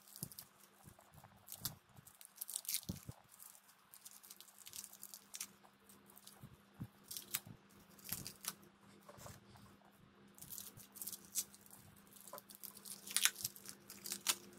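Plastic packaging on a small slime tub crinkling and tearing as it is peeled off by hand, in irregular crackles that come thicker near the end.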